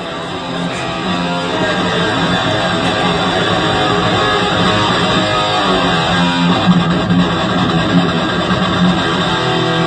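Heavy metal music led by electric guitar with bass, swelling up over the first second or so and then holding steady.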